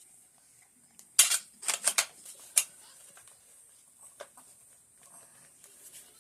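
Metal parts of an AK-47 rifle clicking and clattering as they are handled and fitted together: a quick run of four or five sharp clicks, then a single softer click a couple of seconds later.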